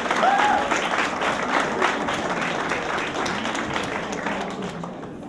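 Audience applauding, with some voices mixed in; the clapping thins out and fades away in the last second or so.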